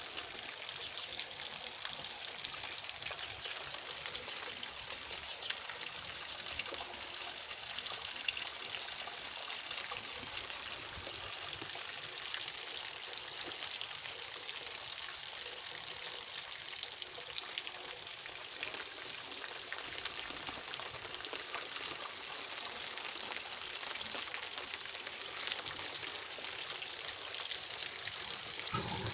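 Steady rain falling, an even hiss dotted with the patter of many separate drops.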